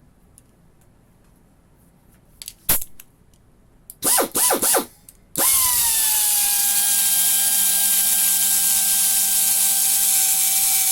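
Pneumatic angle die grinder (0.9 HP, rear exhaust, 12,000 rpm free speed): a couple of sharp clicks, then several short bursts as the throttle is blipped. About five seconds in it starts running continuously at free speed, with a loud steady high whine and air hiss. The whine settles slightly lower in pitch just after it starts, then holds.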